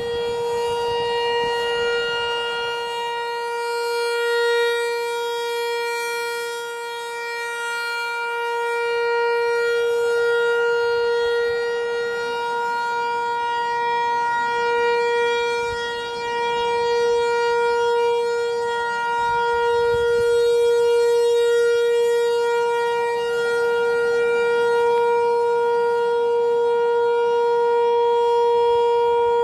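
American Signal T-128 outdoor warning siren sounding the steady full-alert tone: one held pitch that does not rise or fall, its loudness swelling and fading slowly.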